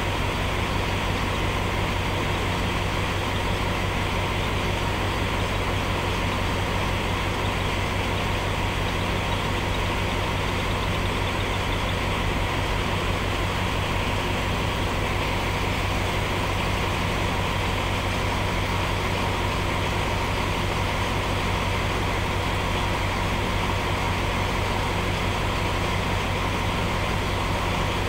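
Diesel train engine idling with a steady low hum while the train stands still.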